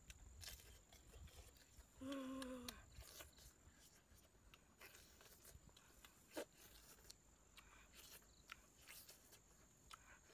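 Quiet eating sounds: faint scattered clicks and smacks of chewing and pulling apart cooked chicken by hand, with a short hummed 'mmm' from the eater about two seconds in.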